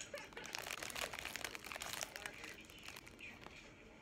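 Clear plastic wrapper crinkling around a crumbly pastry as it is bitten into, with crunchy bites. The crackling is dense at first and thins out in the second half.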